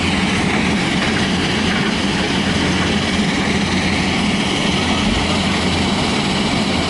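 Heavy diesel engine idling steadily, with an even low hum.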